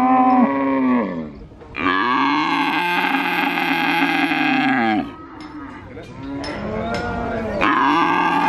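Young calf mooing loudly and repeatedly: one call trailing off about a second in, a long moo of about three seconds, a short fainter one, and another starting near the end.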